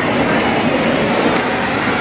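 Steady babble of a large crowd in a hall, many voices blending into one even noise with no single speaker standing out.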